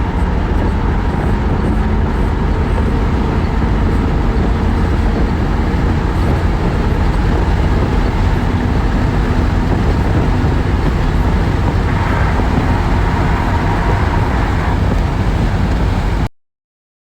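Chevrolet Silverado's 4.8-litre LS V8 running steadily with road-vehicle noise, cutting off suddenly near the end.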